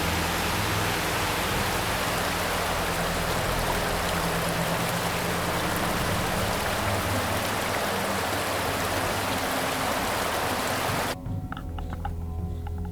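Steady rush of a mountain river, with background music underneath. About eleven seconds in, the water sound cuts off abruptly and only the music remains.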